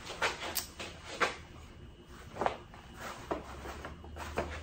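Faint rustling of a shirt and a few light knocks as it is pulled down over an appendix holster and adjusted, with some shuffling steps as the wearer turns. A low hum sets in about three seconds in.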